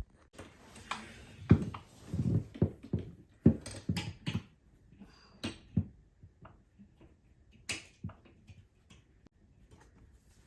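Irregular knocks, clicks and rustling from handling a steel curtain rod and a curtain as the curtain is passed onto the rod. The taps thin out to a few sparse clicks in the second half.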